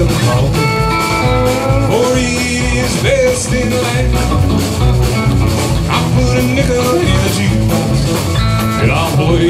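Live country-rock band playing: electric guitars over bass and drums, with a steady beat.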